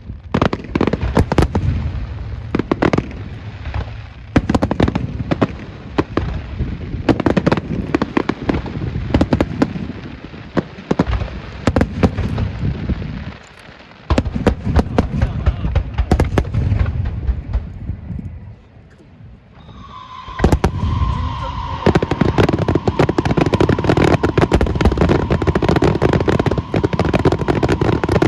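Fireworks going off: a long run of sharp booms and bangs, easing off briefly, then about two-thirds of the way through a dense, rapid crackling barrage with a steady high whistle running through it.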